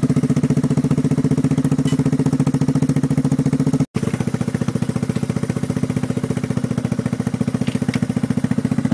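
ATV engine running steadily at an even pitch, with a fast regular pulse. The sound cuts out for a moment about four seconds in and picks straight up again.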